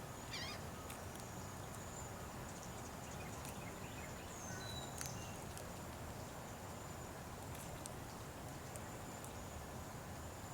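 Small birds at a feeder chirping faintly a few times: one short trill about half a second in and a couple of brief chirps around the middle, over a steady outdoor hiss with scattered soft clicks.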